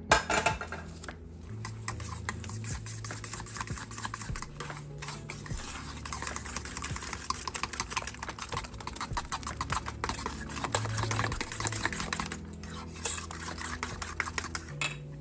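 Wire whisk beating eggs and granulated sugar together in a bowl: fast, continuous clicking and scraping of the wires against the bowl, with a short pause near the end.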